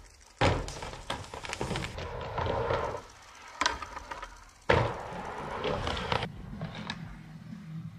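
Skateboard on a big ramp: wheels rolling with sudden clacks and board impacts. The sound starts abruptly about half a second in and again a little past the middle.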